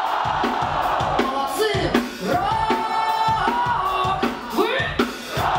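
Live alternative-metal band playing, a woman singing lead with gliding, held notes over steady drum hits and electric guitar.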